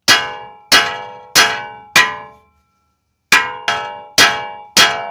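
Hammer striking steel front-suspension parts to knock a lower piece loose: eight sharp, ringing metal clangs, four in quick succession, a pause of about a second, then four more.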